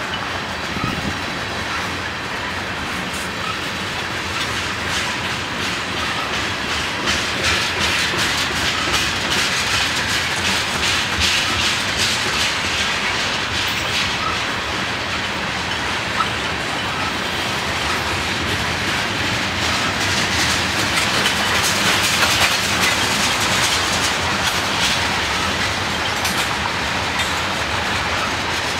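Loaded freight train tank cars rolling past: a steady rumble of steel wheels on rail with a continual clickety-clack of wheels over the rail joints.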